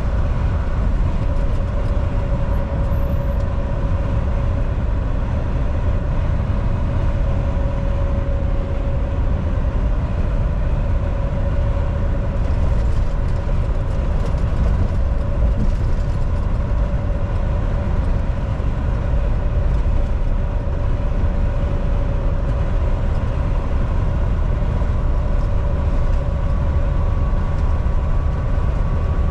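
Volvo VNL 760 semi truck driving at steady highway speed: a constant low rumble of engine and tyres on the road, with an even drone at two steady pitches.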